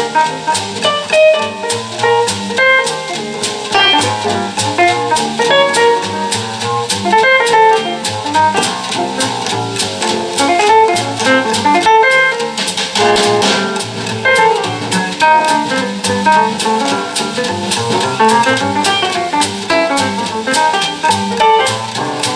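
Recorded jazz with guitar and drums, played back through a 2A3 single-ended valve amplifier and loudspeaker.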